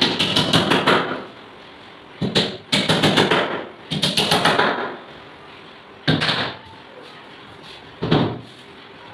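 Hammer driving 1-inch headed nails through a 6 mm plywood back panel into a wardrobe frame. The strikes come in quick runs of light blows, about seven a second, with short pauses between the runs.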